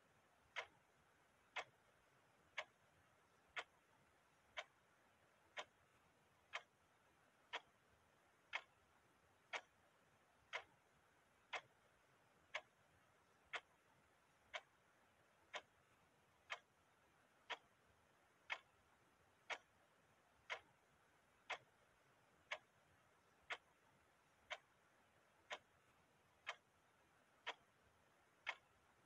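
A clock ticking steadily, one sharp tick each second, all the ticks alike, with a faint hiss between them.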